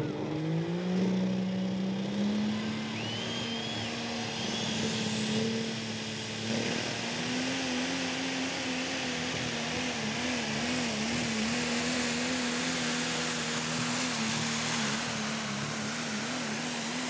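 Ram diesel pickup's turbocharged Cummins engine at full throttle pulling a weight-transfer sled: the engine note climbs over the first couple of seconds, then holds, wavering in the second half. A rising turbo whistle climbs to a high pitch and is held.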